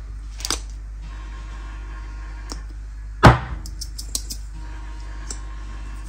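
Spice shakers handled and shaken over a plastic bowl: scattered light clicks and taps, with one louder knock a little over three seconds in, over a steady low hum.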